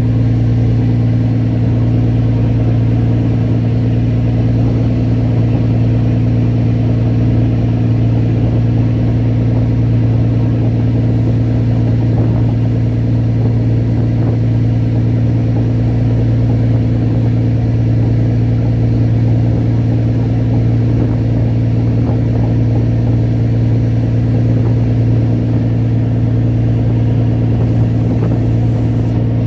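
Boat engine running at a constant speed, a loud, unchanging low drone with no change in pitch.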